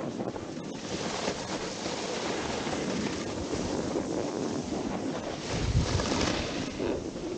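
Snowboard sliding and carving over groomed snow, a steady scraping hiss, with wind buffeting the microphone; a louder rush with a low rumble swells up about six seconds in.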